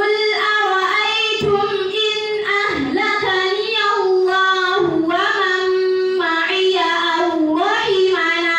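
A female reciter chanting the Qur'an in the melodic tajwid style, drawing the verse out in one long, ornamented phrase that winds up and down in pitch without a pause for breath.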